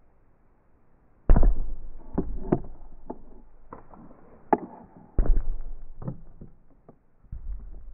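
Latex balloon bumping against the camera and microphone: three dull thumps, about a second in, just past five seconds and near the end, each followed by scattered rubbery clicks that die away.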